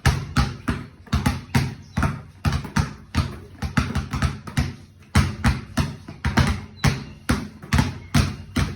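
Two basketballs dribbled on the floor in a one-two, through-the-legs drill: a steady run of bounces, about two to three a second, with some hits landing close together as the two balls alternate.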